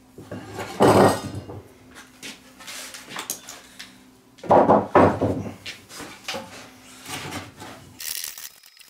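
Wooden mallet knocking a timber-framing chisel into a wooden beam to clean out a slot, with loud blows about a second in and again around halfway, and the steel chisel scraping and paring the wood between the blows and near the end.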